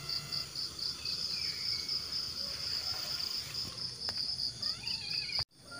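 An insect chirping in a fast, even pulse, about four to five chirps a second, high-pitched and steady in the background.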